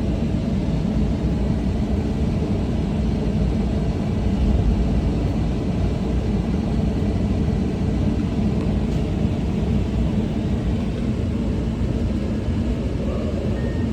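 Komatsu 210 excavator's diesel engine running steadily, a loud low rumble heard from the cab as the machine starts to move off the trailer.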